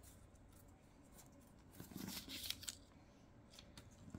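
Product packaging handled by hand: a brief rustle about two seconds in and a few light clicks, otherwise quiet.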